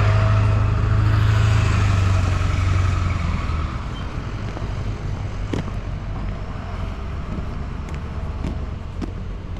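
A truck's engine running with a steady low hum, which drops away about three and a half seconds in, leaving a few light clicks and knocks.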